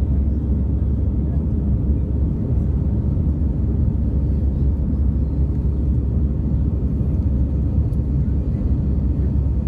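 Steady low rumble of engine and air noise inside an Airbus A319 passenger cabin.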